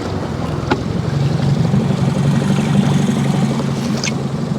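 Motorboat engine running steadily near the bank, its low drone changing pitch about a second in. Two brief sharp clicks come over it.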